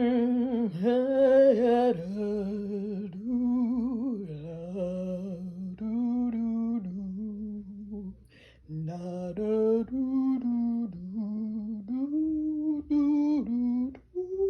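A single voice singing a slow, wordless melody of long held notes that slide from one pitch to the next, with a short break a little past halfway.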